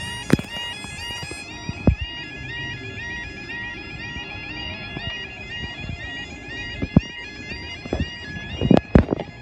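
Level crossing warning alarm sounding, a two-tone yodel that switches rapidly back and forth between two pitches, warning that the barriers are coming down for an approaching train. A few sharp knocks break through it, the last and loudest near the end.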